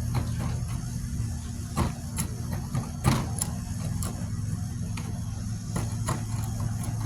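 Scattered clicks and knocks of tools working at the hard clay plug of a firework shell, the loudest knock about three seconds in, over a steady low hum.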